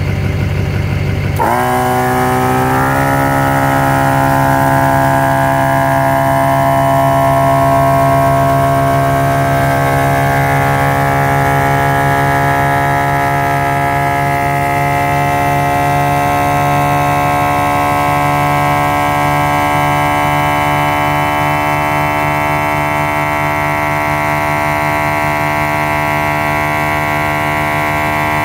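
A MaxiTrac 300 LPM twin-cylinder 12 V air compressor starts about a second and a half in, its pitch rising briefly as the motor spins up. It then runs steadily, pumping up an empty air tank, over a vehicle engine idling underneath.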